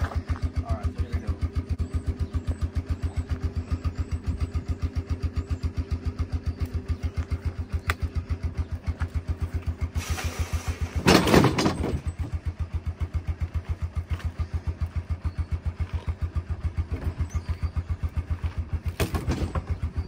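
Four-wheeler ATV engine idling with an even pulse of about seven beats a second. About halfway through there is a louder, noisy burst lasting a second or two, and a shorter one near the end.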